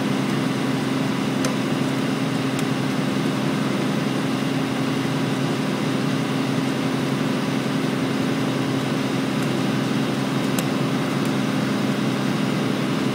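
Diesel engine of a Daewoo 255 excavator working as a skyline winch, running steadily at a constant pitch while the winch hauls the carriage and logs along the skyline.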